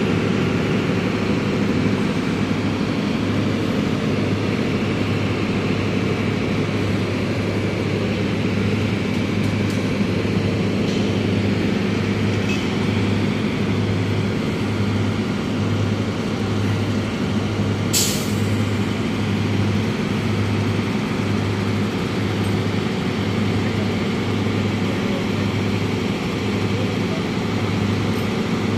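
Steady hum of heavy machinery, with a low throb pulsing about once a second. A short, sharp hiss cuts in about eighteen seconds in.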